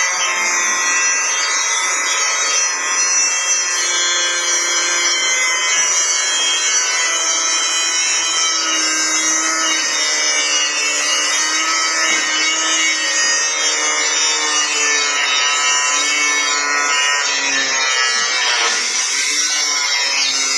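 Instrumental background music of sustained notes that step in pitch every second or two, steady and loud throughout.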